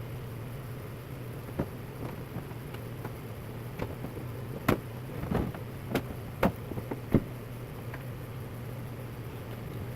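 A scattered series of short, sharp knocks and clicks from hand work on the truck's front end, the loudest clustered between about four and a half and seven seconds in, over a steady low hum.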